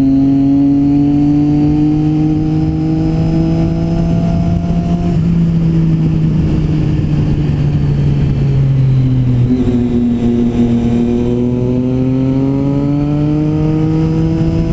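Motorcycle engine heard from the rider's position, pulling at steady revs with the pitch slowly climbing, dropping about two-thirds through and then climbing again, over wind noise.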